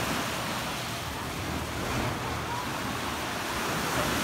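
Steady wash of sea waves on a sandy beach.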